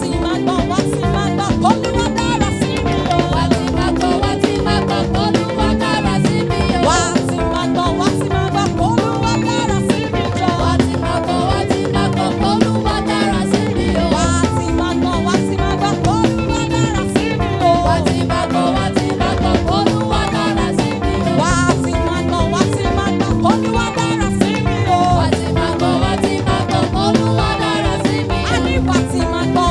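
Upbeat band music with drums keeping a steady dance beat, at an even loudness throughout.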